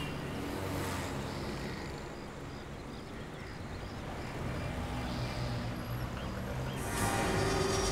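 Busy street traffic ambience: auto-rickshaws and motorbikes running past, with faint high chirps repeating a few times a second. Music starts about seven seconds in.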